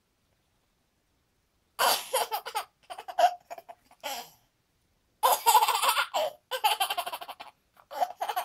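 A young child laughing in several choppy bursts, starting about two seconds in, with a short pause near the middle.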